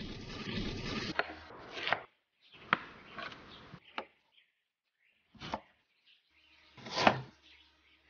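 Pineapple being cut with a katana on a wooden cutting board. In the first two seconds the blade rasps through the tough rind, and after that come a series of sharp separate knocks as the blade chops down onto the board.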